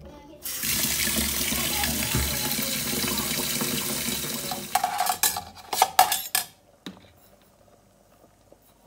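Tap water pouring into a metal pot of rice as the rice is washed, a steady rush for about four seconds that then stops. Several quick clatters of the pot follow.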